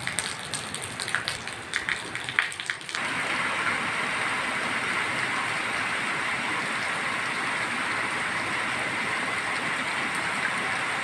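Heavy monsoon rain. For about three seconds, separate drops patter and splash onto wet concrete and puddles, then the sound changes suddenly to the steady, dense hiss of a downpour on banana leaves.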